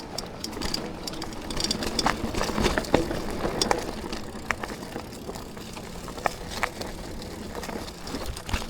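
Mountain bike ridden along a dirt trail: steady tyre and rolling noise with frequent sharp clicks and knocks as the chain and bike rattle over bumps.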